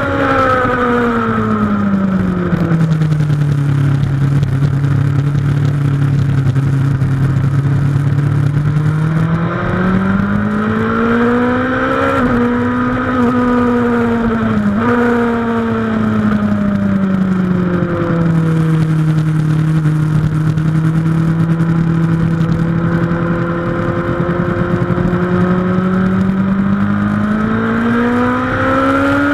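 A Suzuki GSX-R1000 K2's inline-four engine running under way, heard onboard with wind rush. Its note glides down and holds steady, rises again with a brief dip about halfway through, falls and holds, then climbs again near the end.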